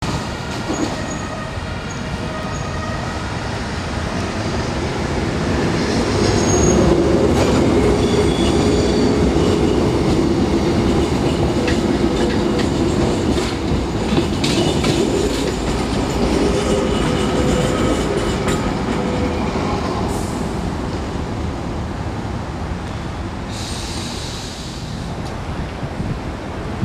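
Articulated electric tramcars of the 830 series running on street track: a steady running noise with a low hum, the wheels squealing at a high pitch now and then, and occasional clicks over the rail joints.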